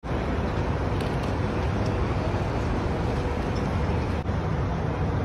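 Steady low rumble of outdoor city background noise, even throughout with no distinct events.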